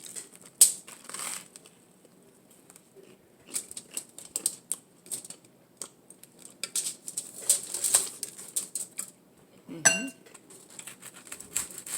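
Crunchy bites into a toasted bacon avocado tuna melt sandwich, with close-up chewing and crackling in irregular clusters. A short hummed "mm" comes near the end.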